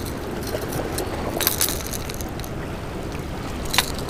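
Steady wind and surf washing against jetty rocks, with a few sharp clicks and rattles from a popper lure and its hooks being handled: a cluster about a second and a half in and a single louder click near the end.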